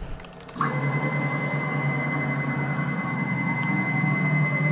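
Stepmores SM-4040 CNC router's table driven by its stepper motor in a rapid move, a steady machine whine with a thin high tone that starts about half a second in and holds one pitch.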